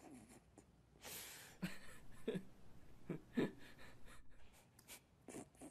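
A person's quiet breathing: a soft intake of breath about a second in, then a few faint, short mouth sounds.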